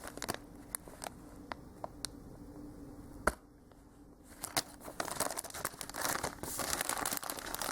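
Plastic packaging crinkling as it is handled, with scattered crackles and one sharp tap about three seconds in. The crinkling grows denser near the end.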